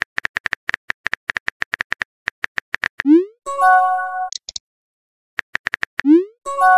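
Texting-app sound effects: a fast run of keyboard clicks as a message is typed, a short rising swoosh as it is sent, then a brief chime of several notes. Near the end the clicks start again, followed by another swoosh and the start of another chime.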